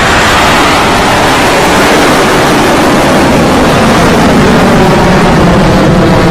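Electron rocket's nine first-stage Rutherford engines firing at liftoff, a loud, steady rumble of rocket exhaust.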